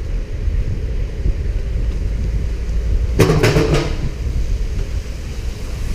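Wind buffeting the microphone while riding a bicycle, a steady low rumble, with a brief harsher burst carrying a low tone a little past halfway.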